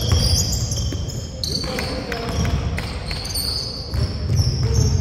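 Basketball dribbled on a hardwood gym floor, with players' sneakers squeaking several times in short high squeals as they run.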